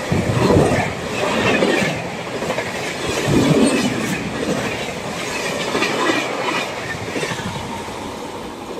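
Express train's LHB passenger coaches passing close at high speed, the wheels clattering over the rail joints in repeated surges as each bogie goes by. The sound eases off near the end as the train moves away.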